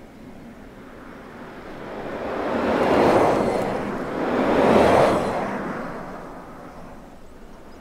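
Audi A6 e-tron concept electric car driving past with no engine note, only tyre noise on asphalt and rushing air. The sound swells twice, loudest about three and five seconds in, then fades away.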